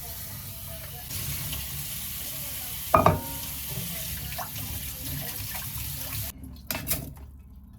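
Kitchen tap running into the sink while quinoa is rinsed, with one sharp knock and a brief ring about three seconds in. The water shuts off suddenly near the end, followed by a couple of knocks.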